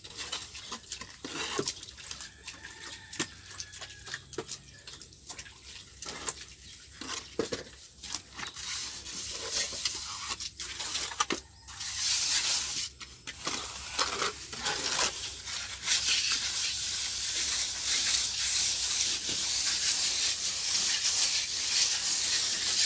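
Hand float rubbing over wet cement render on a wall. It starts as separate short scraping strokes, then from about halfway becomes a louder, steady hissing rub as the float is worked continuously across the surface to smooth the finish.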